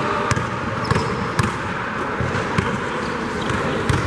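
Basketball bouncing on a gym floor during play: a few sharp bounces, irregularly spaced, over the steady background noise of the game.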